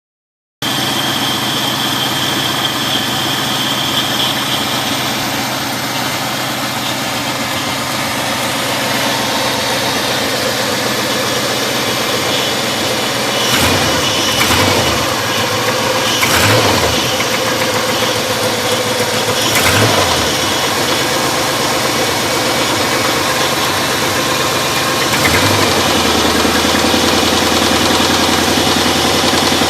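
A 1995 GM B-body's LT1 5.7-litre V8 running at idle with the knock of a spun bearing, worn out at 278,000 miles. The throttle is blipped several times from about 13 seconds in.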